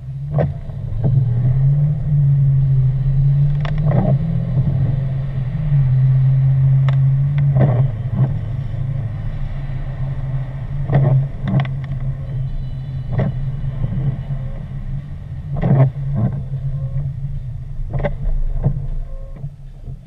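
Car engine and road noise heard from inside the cabin while driving, the engine pulling harder over the first several seconds after moving off, with a dozen or so scattered sharp taps and knocks.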